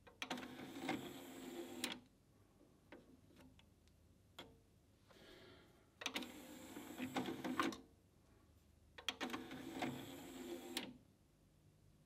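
Pioneer PD-S602 CD player's motorised platter tray running out and in, three runs of whirring of about two seconds each, with a few light clicks of the disc and tray being handled between them.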